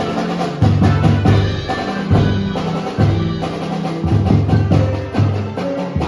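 Marching band playing: many quick drum and percussion strikes over low held notes that change every half second or so.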